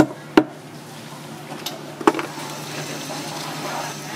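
Heavy knife blade knocking against a wooden cutting board while chopping through a fish head: two sharp knocks close together at the start and one more about two seconds in, over a steady hum.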